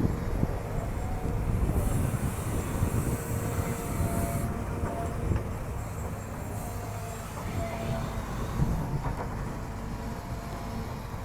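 Hydraulic excavator working: a diesel engine rumbling under load with hydraulic whine, and two spells of high hiss during the dig cycle.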